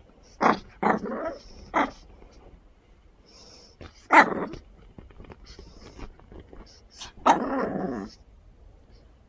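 Shih Tzu puppy barking in play at a finger. There are three quick yaps in the first two seconds, another about four seconds in, and a longer bark near the end.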